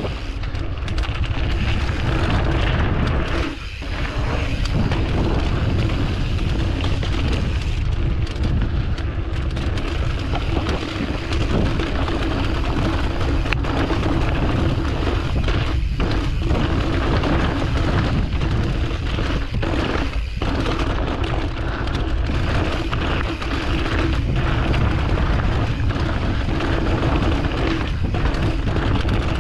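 Wind buffeting the microphone over the rumble and rattle of a mountain bike riding fast down a dirt trail. It is a steady, heavy roar with a few brief dips where the wind drops.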